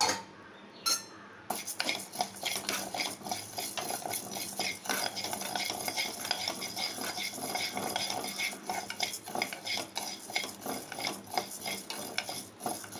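A metal spoon stirring and scraping urad dal as it dry-roasts in a kadai, the hard grains rattling against the pan with a dense clatter of small clicks. A couple of single knocks come first, and the steady stirring starts about a second and a half in.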